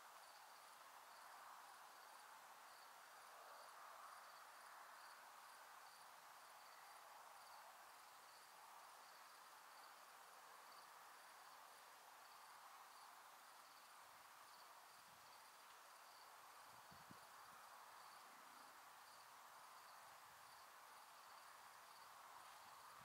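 Near silence, with a faint steady hiss and a single distant cricket chirping in an even, unbroken rhythm.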